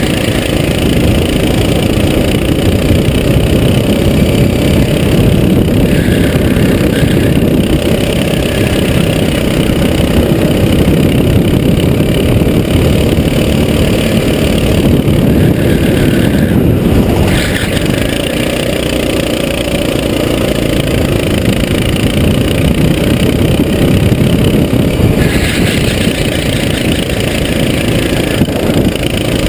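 Onboard sound of a Sodi SR4 rental kart's single-cylinder four-stroke engine running hard at racing speed. Its note changes several times as the kart goes through corners.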